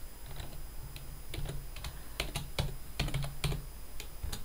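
Computer keyboard being typed on: an uneven run of separate key clicks.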